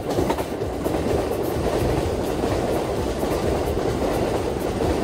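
JR East E353 series electric express train passing close beneath, a steady rumble of wheels on rails that grows louder over the first second and then holds.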